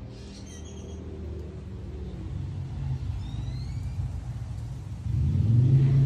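Low engine rumble of a motor vehicle, swelling noticeably louder about five seconds in as it draws closer. Faint high chirps sound briefly near the start and again midway.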